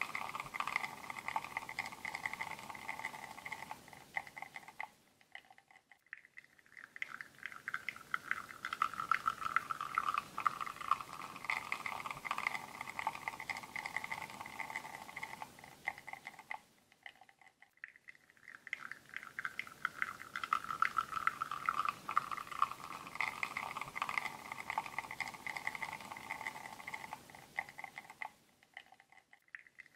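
Espresso machine pulling a shot through a bottomless portafilter, the espresso sputtering and pouring into a cup. The sound fades to a short silence and starts again about every twelve seconds.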